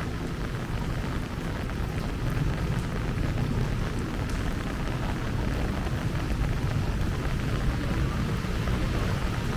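Heavy rain falling steadily, with a low rumble underneath that grows slightly louder.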